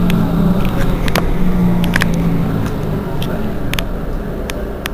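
Mercedes-Benz Citaro G C2 articulated bus engine idling steadily with a low hum, with a few short sharp clicks.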